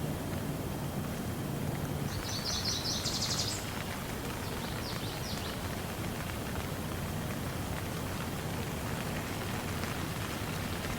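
Steady rain falling. About two seconds in there is a brief burst of rapid high chirps, and a fainter one follows a second or so later.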